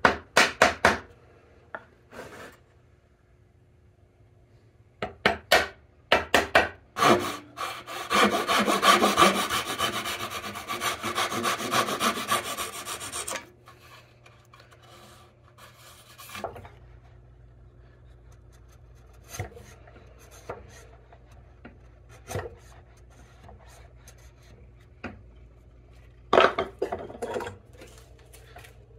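Hand tools working sassafras dovetails: sharp chisel clicks and knocks, then about five seconds of steady, continuous scraping strokes cutting across the wood. Near the end come scattered light taps and a short cluster of knocks.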